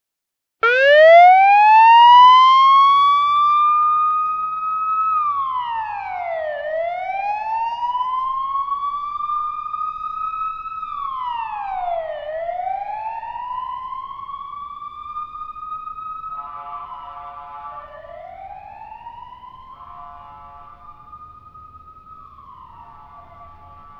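Siren wailing: it starts abruptly with a fast upward sweep, then falls and rises slowly in cycles of about five to six seconds. About two-thirds through, a second pattern of steady stepped tones joins it, and the whole sound fades gradually.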